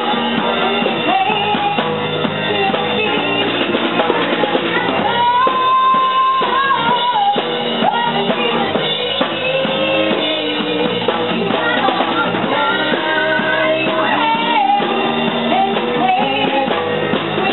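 A woman singing lead into a microphone over a live band, with a hand drum and guitar accompanying; she holds one long note about five seconds in.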